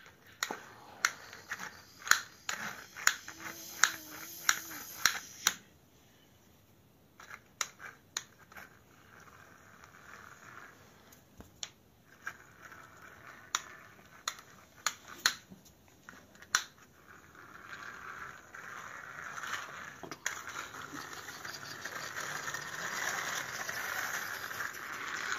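Small plastic toy rickshaw with a doll rider, pushed by hand across a hard floor. Its plastic wheels and parts click and rattle in quick succession for the first several seconds, then click only now and then. Over the last eight seconds or so a steady rolling whir builds.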